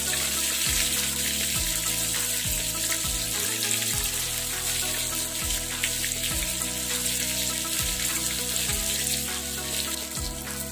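Marinated fish pieces sizzling in hot oil in a nonstick pan, a steady hiss, under background music.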